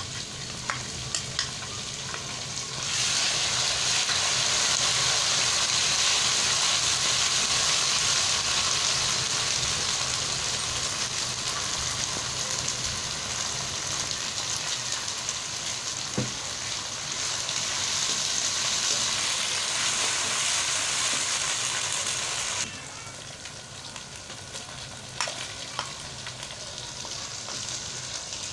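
Sliced onions and ginger-garlic-green chilli paste sizzling in hot oil in a non-stick wok while being stirred with a spatula. The sizzle grows much louder about three seconds in and drops off suddenly a few seconds before the end, with a few light taps scattered through.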